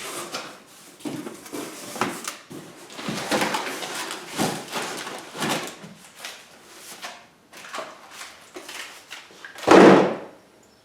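Cardboard packaging being opened and handled: flaps and packing material scraping and rustling in irregular bursts, with one loud thump near the end.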